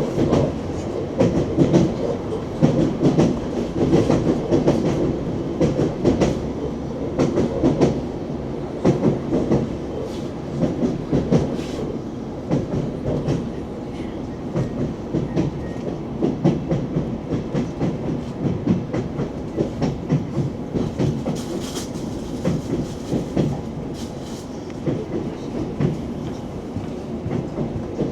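ES2G "Lastochka" electric multiple unit running on the track, its wheels clattering over the rails in a continuous run of knocks and clicks over a steady rumble.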